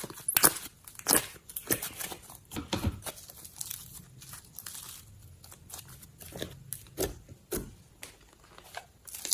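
Slime being squished and stretched, giving irregular sharp pops and crackly, crunchy squelches. The pops come thickest in the first three seconds and again around seven seconds, with a quieter stretch in between.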